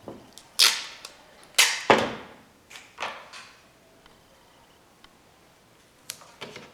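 A string of sharp snaps and knocks: three loud ones in the first two seconds, then several fainter ones, each dying away quickly.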